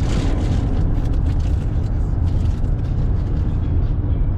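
Steady road noise inside a pickup truck's cab at highway speed: a low drone with tyre and wind hiss, even throughout.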